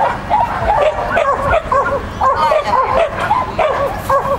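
A dog yipping and barking in rapid, high-pitched bursts, several a second, without letting up.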